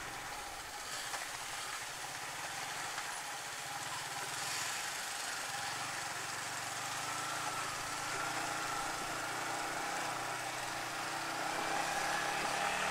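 Yamaha motorcycle ridden slowly over a rough gravel track, its engine running at low revs under a steady hiss of wind and tyres on stones. A faint engine whine rises slowly in pitch in the second half.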